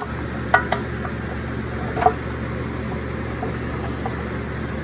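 A few light clicks and taps from a metal paint can and its lid being handled and wiped with a rag, about half a second in and again about two seconds in, over a steady background hum and hiss.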